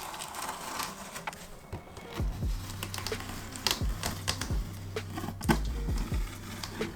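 Toy figure packaging being handled and opened by hand: irregular clicks, taps and rustles of cardboard and plastic.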